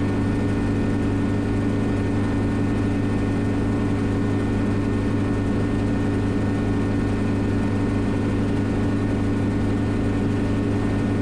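Schweizer 300CB helicopter's four-cylinder Lycoming piston engine and rotors running steadily in forward flight, heard from inside the cockpit as a constant drone with a strong low hum.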